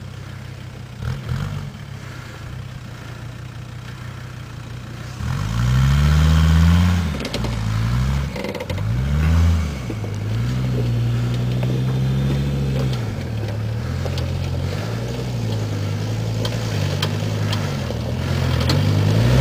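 VW T3 Transporter Syncro's 2.5 TDI diesel engine at low revs while the van crawls over rocks. From about five seconds in, it is revved up and down several times as the van climbs a rock step, then settles to a steadier pull.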